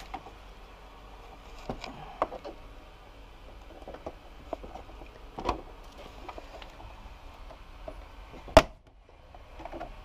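Plastic side fairing panel of a Yamaha Tracer 700 being handled and pressed onto its mounting clips: scattered light plastic clicks and knocks, with one loud sharp snap a little before the end.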